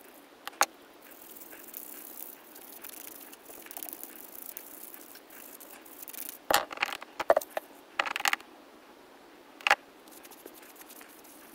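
Small-scale cleaning of a wristwatch case and crystal: a faint hiss of rubbing and scraping, then several sharp clicks and rattles of tools against the metal case in the second half.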